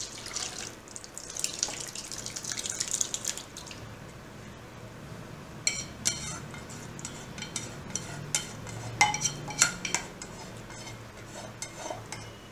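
Curdled milk and whey poured from a metal pot into a cloth-lined strainer, splashing for the first three and a half seconds. Then a spoon scrapes the remaining chhena curds out of the pot, with a run of clinks and knocks of metal on metal.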